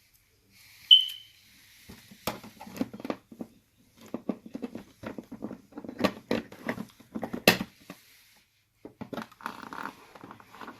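Toy packaging being handled and pulled open: irregular crackling, crinkling and tearing, with a sharp snap about a second in as the loudest sound.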